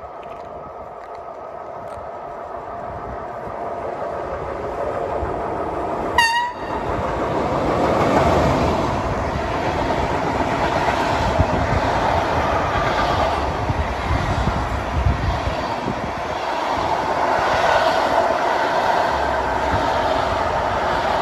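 DB Class 111 electric locomotive approaching with its passenger train, getting louder, and sounding one short horn blast about six seconds in. Then the train's coaches roll past with steady wheel-and-rail noise.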